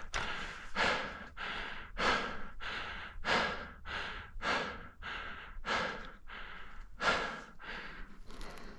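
A person breathing hard: deep, regular in-and-out breaths, a full breath about every second and a bit.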